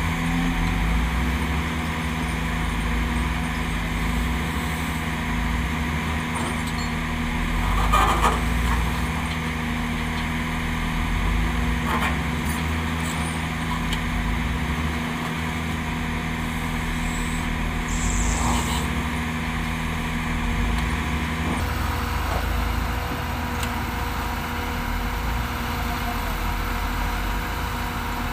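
Heavy diesel engines of a Hyundai wheel loader and crawler excavator running under load, a steady low drone. A few short knocks come through, the loudest about eight seconds in and another about twelve seconds in, as the machines work the boulder. The engine note changes about three-quarters of the way through.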